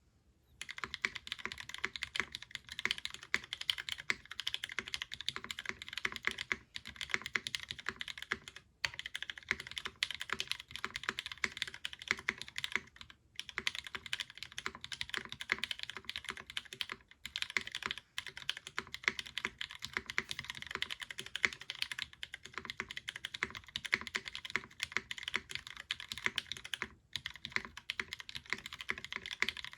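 Typing on an RS60 mechanical keyboard with retooled Cherry MX Brown tactile switches, an aluminium full plate, GMK keycaps and no foam inside. The clicks start about half a second in and run fast and continuous, with a few brief pauses. The owner finds the sound maybe a little hollow.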